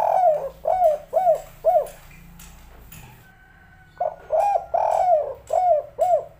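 Spotted dove (tekukur) cooing in the 'kuk 3' song type: a phrase of short arched coos that ends about two seconds in, a pause, then a second phrase of coos starting about four seconds in.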